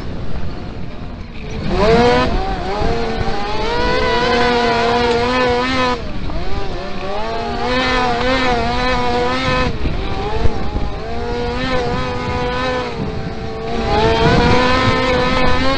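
Kart-cross buggy's four-stroke motorcycle engine heard onboard, revving hard and easing off through the turns of a dirt track. It climbs in pitch about two seconds in, drops off around six seconds, picks up again, dips twice more and climbs once more near the end, over a steady low rumble.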